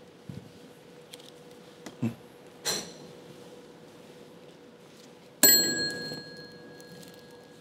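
A metal desk service bell struck once, about five and a half seconds in, with a clear ding that rings on and fades slowly. A few faint rustles and taps come before it.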